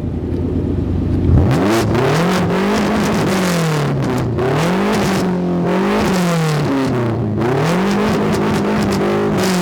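Car engine revving hard, its pitch climbing and dropping again in repeated swells every second or two.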